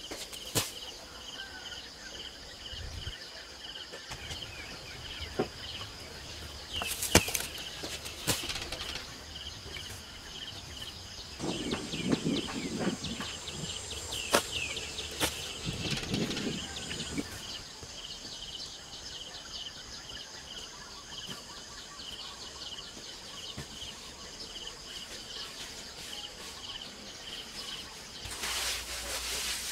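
Insects chirping in a steady chorus of regular pulses, with scattered clicks and knocks. About halfway through, loose soil is tipped from a woven basket into an earth pit, a pouring, scattering sound that lasts a few seconds.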